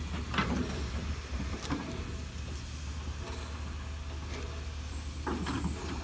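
Steam locomotive and tender turning slowly on a turntable: a steady low rumble with a few short knocks and hisses, the last and loudest about five seconds in.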